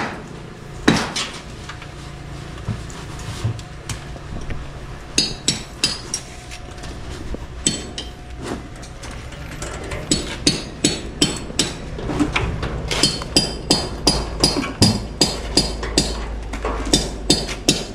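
Hammer blows on a construction job, each strike with a short bright ring. The blows are scattered at first, then come as a steady run of about two to three a second from about ten seconds in.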